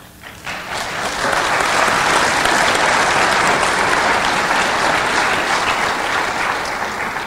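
Audience applauding: the clapping swells up within the first second, holds steady, and dies away near the end.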